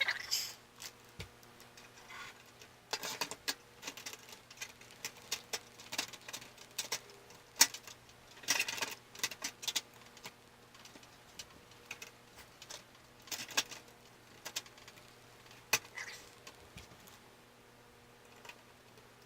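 Irregular small clicks, taps and short rustles of metal and plastic PC parts being handled and fitted into a computer case during assembly, over a faint steady hum.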